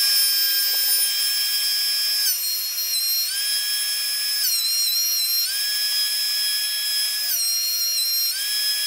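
DeWalt benchtop thickness planer running with a loud, high-pitched whine. Three times, the whole whine drops in pitch for about a second and then climbs back, as the cutterhead slows under load with a thick board feeding through.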